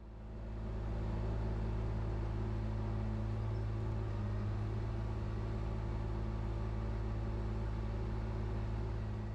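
ASV mini tracked skid steer's engine running steadily as the machine drives with a hay bale on its spear, with a low, even hum. The sound comes up over the first second and fades out near the end.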